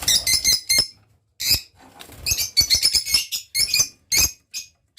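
Lovebirds chirping: several bursts of rapid, shrill chirps with short gaps between them.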